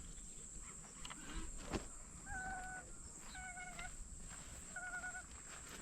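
An animal calling three times in short, level, slightly wavering notes, over a steady high-pitched tone and a few faint clicks.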